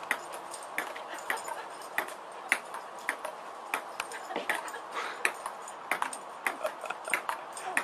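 A table tennis ball in a rally, bouncing on the table with sharp clicks, about two or three a second at an uneven pace.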